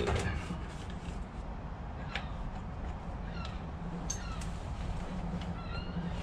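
Several short, falling, high-pitched animal calls, spaced a second or so apart, over a low steady hum.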